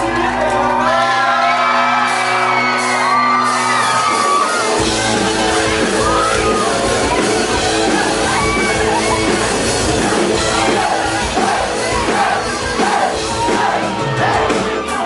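Live music with singing, and a crowd shouting and whooping in a large hall. About four seconds in, the music fills out with a heavy low end.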